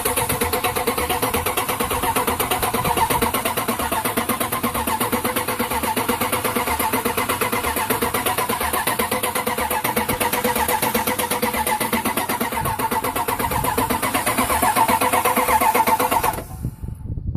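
Dodge 318 V8 cranking on the starter for a long stretch without firing, an even rhythmic churn that cuts off about a second before the end. It is a no-start with no spark from the ignition, according to the owner.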